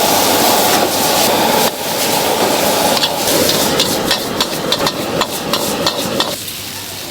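Stir-frying in a wok: food sizzling loudly while a metal spatula scrapes and strikes the wok in quick, irregular clangs that come thickest in the second half. The sizzling drops away near the end.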